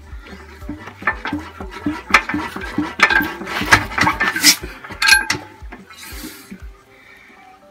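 Irregular metallic clanks and clinks from an antique Imperial Super Diesel hit-and-miss engine being worked by hand, busiest in the middle, then a brief hiss about six seconds in.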